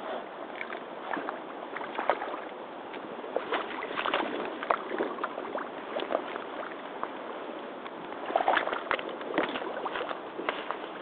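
Rubber hip boots wading through a deep puddle: water sloshing and splashing around the legs as they step, with many short sharp splashes and ticks that bunch up about four seconds in and again near the end.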